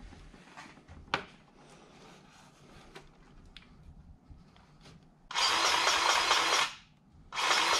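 Battery-powered grease gun running in two bursts of about a second each, pumping grease into the zerk of a John Deere 2320's drive-shaft U-joint, with quiet handling before it.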